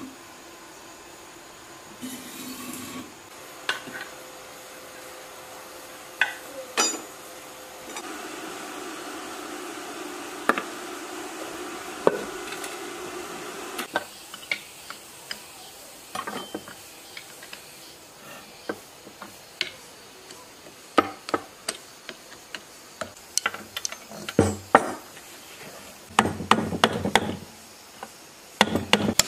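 Steel hand scraper working rust and crusted dirt off the metal parts of an old generator: irregular sharp taps and clicks with rasping scrapes. They are busiest and loudest in the last few seconds.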